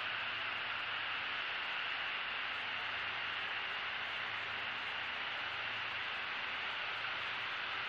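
Steady static hiss with a faint low hum underneath, the constant background noise of an outdoor live-stream camera's microphone.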